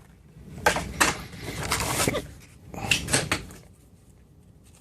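Hard plastic blister packaging being forced open by hand, in three bouts of noisy plastic handling about a second apart, then it goes quiet.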